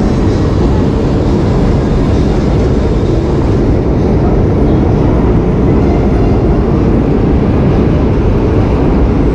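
Loud, steady low rumble of an elevated light-rail train running past.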